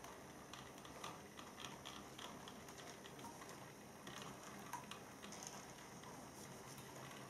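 Faint irregular clicking of a model railway tank locomotive and its goods wagons running along the track, over a low steady motor hum.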